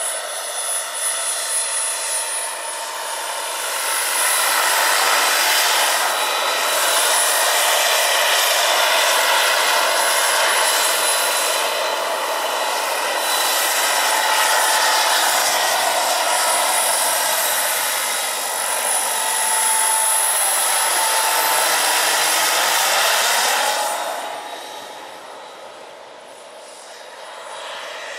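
Large turbine-powered RC scale Gazelle helicopter flying, its Jakadofsky Pro 6000 turbine giving a steady high whine over a dense rushing noise. It grows louder a few seconds in, with the pitch bending as it passes close. It drops away sharply near the end as it flies off.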